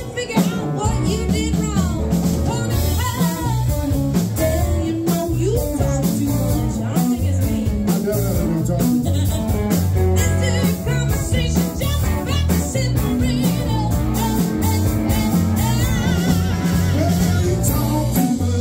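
Live band playing amplified electric guitars, electric bass and a drum kit, with a steady beat throughout.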